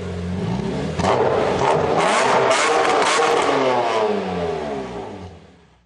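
A car engine revving hard, jumping louder about a second in, then its pitch falling as it fades away.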